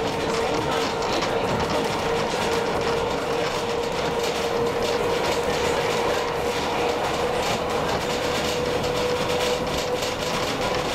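Heritage train on the narrow-gauge Roslagsbanan running along the track: a steady rolling rumble and rail noise with a constant whine held throughout.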